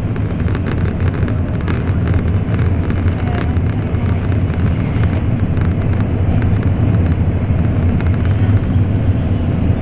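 Steady low rumble of an N700 Series Shinkansen running at speed, heard inside the passenger cabin, with faint scattered ticks.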